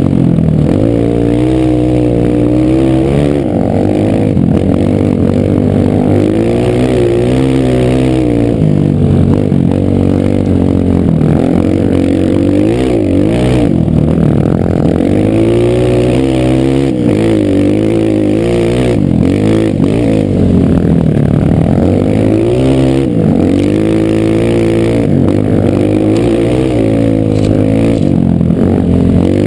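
Single-cylinder four-stroke trail bike engine, a Honda CRF230, being ridden hard: the engine revs up and drops back again and again with the throttle and gear changes. A few short knocks and rattles come through along with it.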